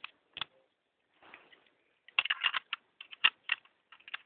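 Hard plastic toy parts of a Dino Megazord figure clicking and rattling as pieces are handled and fitted together: two sharp clicks at first, a brief scrape about a second in, then a rapid run of clicks over the last two seconds.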